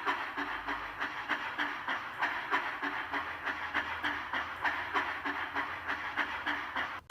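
Steam locomotive sound effect: a fast, even run of chuffs with a hiss of steam, cutting off suddenly near the end.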